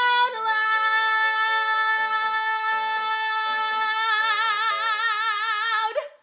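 Woman belting the long final held note of a musical-theatre song. The note is steady at first, its vibrato widens over the last two seconds, and it cuts off about six seconds in.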